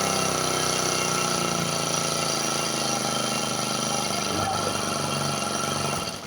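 Small four-stroke grass cutter engine running steadily with diesel in its crankcase to flush out the old, dirty oil, then cut off near the end.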